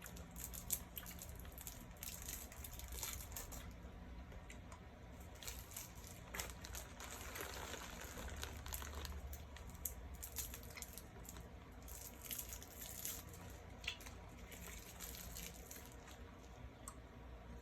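Soft, scattered crinkling and small wet clicks: banana chew candy wrappers being handled and candy being chewed.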